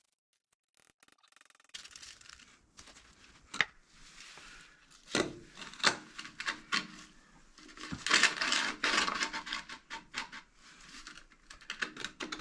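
Hand tool scraping and chipping at the concrete slab around a toilet drain to knock down a high spot so the new flange will sit. It goes in irregular scrapes with a few sharp knocks and a busy stretch of scraping past the middle.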